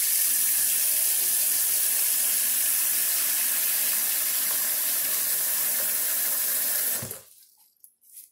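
Kitchen tap running full into a stainless steel bowl in a steel sink, filling it with water. The flow is steady and stops about seven seconds in.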